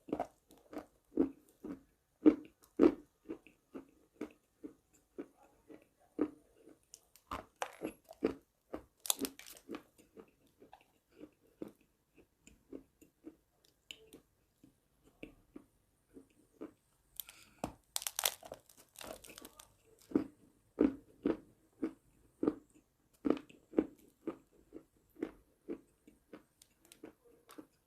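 Crunchy biting and chewing of chalk, close to the microphone. Steady chewing crunches come about twice a second, with louder, sharper bites about eight seconds in and again around eighteen seconds.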